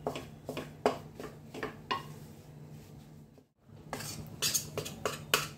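Metal spatula scraping and stirring wheat flour roasting in ghee in a stainless steel pan, in repeated short strokes about two a second. The strokes stop briefly about three and a half seconds in, then come quicker.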